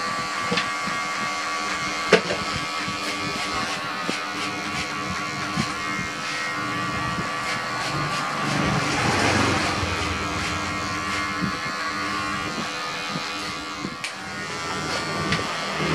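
Electric hair clipper buzzing steadily as it cuts short hair, with a few sharp clicks, the loudest about two seconds in.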